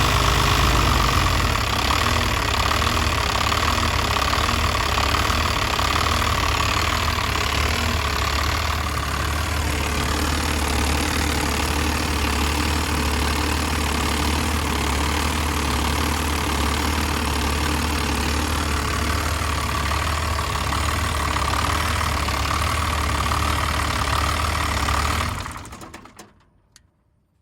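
Diesel engine with a VE rotary injection pump idling roughly. The sound stops near the end.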